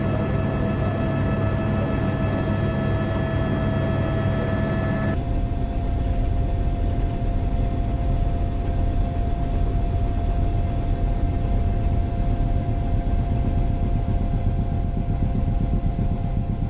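Steady engine drone of an aircraft, a low rumble with a constant hum over it. About five seconds in it changes abruptly to a slightly different drone.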